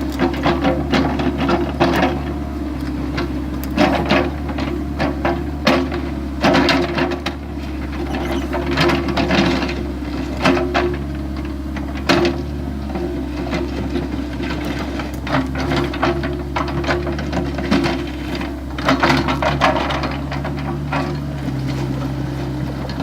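Excavator engine running steadily while the machine digs, with frequent irregular clanks and scrapes of the bucket working in soil and rock.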